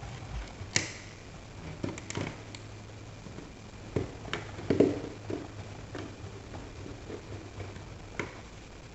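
Scattered clicks and taps of a hand screwdriver turning small screws into the hard plastic trim plate of a recessed wall box, with a louder cluster of knocks about five seconds in.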